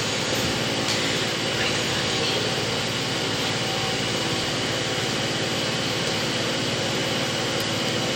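A steady, unchanging mechanical hum with a hiss.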